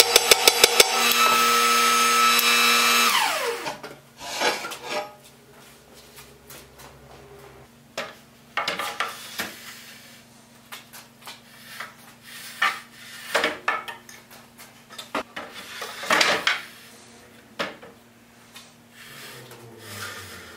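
A power tool hammering in rapid, even pulses, then running steadily and winding down in pitch to a stop about three seconds in. After it come scattered wooden knocks and clunks as the heavy wooden bobsled runner parts are shifted and set down.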